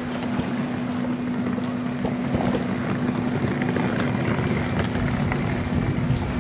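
Steady low mechanical hum of a docked ferry's engines, one unchanging tone under a rougher low rumble.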